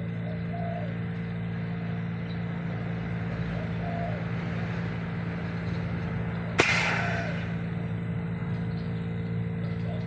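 Refrigerator compressor running with a steady hum, blowing through its cut-open return pipe to flush out oil and gas, which is stopped by a finger over the pipe end. About two-thirds through comes one sudden sharp pop with a short hiss after it.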